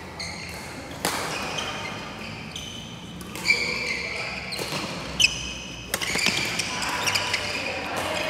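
Badminton doubles rally on a wooden court: sharp smacks of rackets hitting the shuttlecock every second or two, and sneakers squeaking on the floor.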